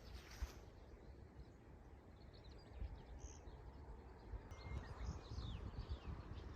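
Faint bird calls, a series of short chirps in the middle of the stretch, over a steady low outdoor rumble.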